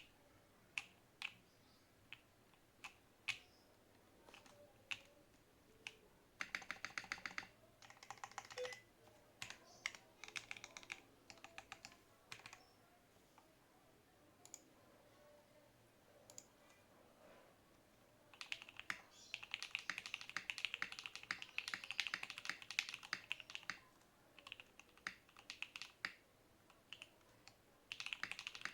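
Gasket-mount TKL mechanical keyboard with an FR4 plate, lubed JWICK Black linear switches and IFK Port keycaps, being typed on. Separate single keystrokes at first, then short bursts of fast typing, a longer run of quick typing about two-thirds through, and scattered presses again near the end.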